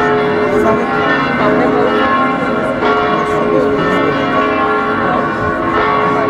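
Church bells of the Týn church pealing, many bells ringing at once so that their tones overlap and hang on without a break.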